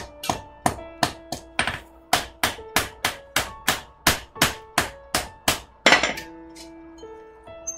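Hand hammer beating a red-hot knife blade on an anvil, about three ringing blows a second. A louder clang comes about six seconds in, after which the hammering stops.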